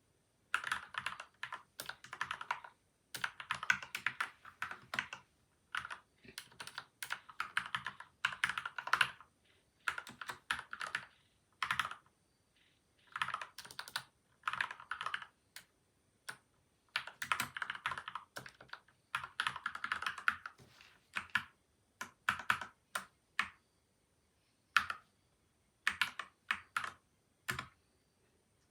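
Typing on a PCL87 mechanical keyboard with lubed Gateron milky white and Outemu yellow switches, taped and foam-dampened: bursts of rapid keystrokes a second or two long with short pauses between, thinning out toward the end.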